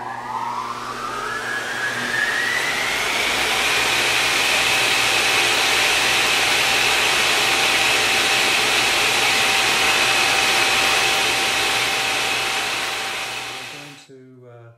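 Intro sound effect: a whine that climbs in pitch for about three seconds, then holds steady over a loud rushing hiss, fading and cutting off near the end.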